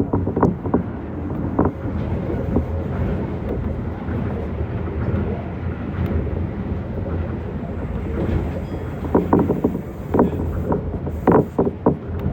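Tokyo Monorail train running on its track beam: a steady low rumble of the rubber-tyred cars with wind noise, and a few short louder bursts just after the start and again late on.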